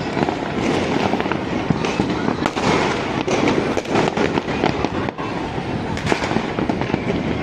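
Fireworks and firecrackers going off in a dense, continuous barrage: many overlapping bangs and crackles with no pause.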